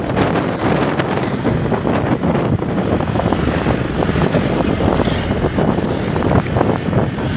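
Heavy wind buffeting on the microphone of a camera on a moving motorcycle, with the rumble of the ride and passing traffic beneath it.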